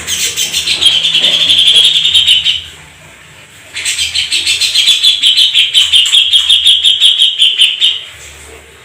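Domestic canary singing two long rolling trills, rapid repeated notes held at one high pitch, with a pause of about a second between them: the long roll prized for training competition songbirds.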